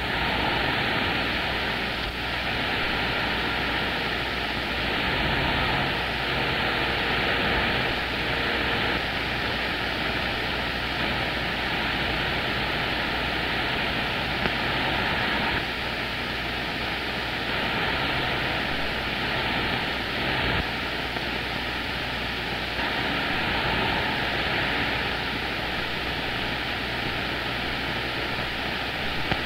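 Steady static hiss from a CB radio receiver with the squelch open between transmissions, no station coming through. A faint short tone shows up about six seconds in.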